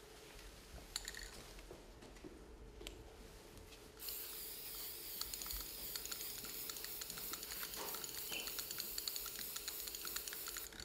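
A few light clicks, then, starting about four seconds in, an aerosol spray-paint can hissing steadily as red paint is sprayed through a stencil onto a wall, cutting off just before the end.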